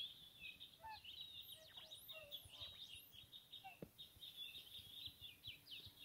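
Faint, high twittering of small birds, a dense run of short chirps, with a few brief lower calls in the first half.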